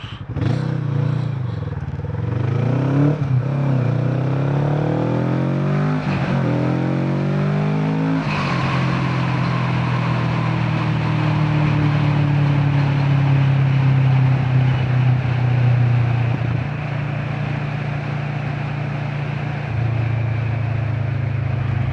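Kawasaki Vulcan motorcycle engine accelerating, its pitch climbing in several steps with a break at each gear change over the first eight seconds or so, then running at a steady cruise with wind rushing past.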